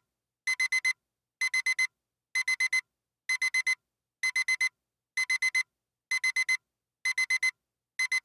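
Electronic alarm-clock beeping in quick sets of four short, high beeps, repeating about once a second. It is the time-up alarm of a countdown timer that has reached zero.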